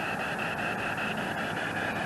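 SB7 spirit box sweeping through radio frequencies: a steady static hiss broken by rapid, evenly spaced clicks several times a second as it jumps from station to station.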